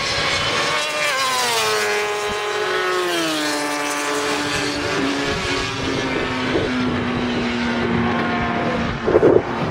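Suzuki GSX-R1000 inline-four superbike engine at high revs going past. Its pitch drops as it passes, then settles into a lower, steadier note as the bike heads away down the straight. A short louder burst comes near the end.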